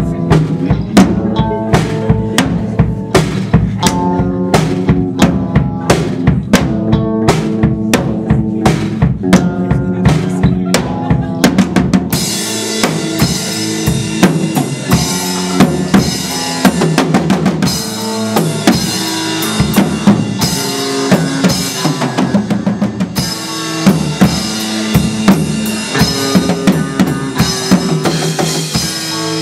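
Instrumental band music: a drum kit with kick and snare keeping a steady beat under pitched bass and guitar-range notes. The cymbals and full band come in about twelve seconds in.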